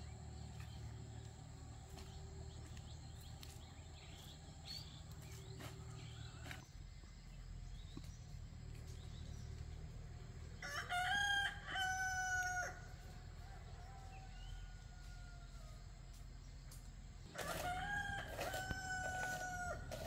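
A rooster crowing twice, each crow about two seconds long: the first a little past the middle, the second near the end.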